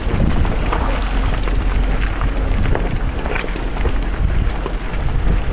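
Jeep driving on a muddy trail: a steady low rumble of engine and tyres, with scattered knocks and clatter.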